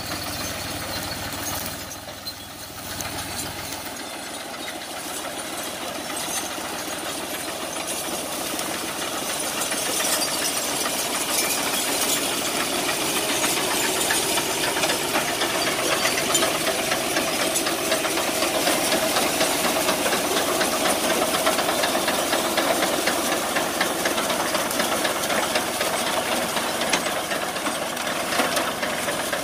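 Tractor engine running under load, driving a tractor-mounted reaper binder through standing wheat, with the cutter bar and binder mechanism clattering over the engine. It grows louder about a third of the way in and then stays loud and steady.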